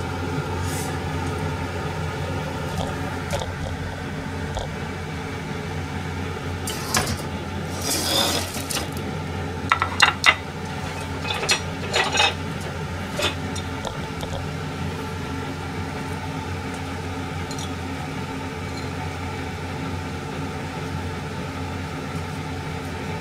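Ceramic plates and chopsticks clinking and knocking against a metal grill rack and the counter, a handful of sharp clinks between about seven and thirteen seconds in, over a steady mechanical hum.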